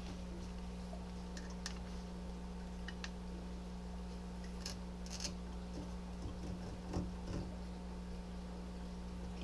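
Faint, scattered short scratches and clicks of a small hand tool worked along the edge of a vinyl backdrop on the glass, over a steady low hum.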